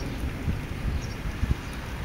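Wind on the microphone: a low rumble with a couple of dull thumps, about half a second and a second and a half in.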